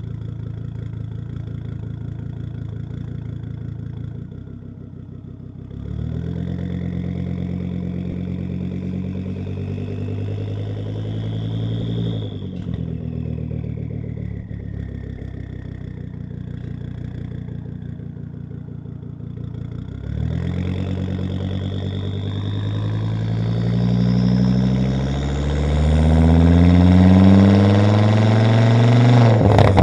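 Volvo S60 2.5T's turbocharged inline five-cylinder running through a catless exhaust, accelerating hard: the engine note climbs in pitch from about six seconds in, drops at a gear change around twelve seconds, then climbs again from about twenty seconds, loudest near the end. A high turbo whistle rises with the revs.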